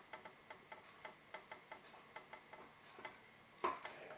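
Fast, even ticking, about five ticks a second, then a louder knock and rustle near the end as the balsa model is handled.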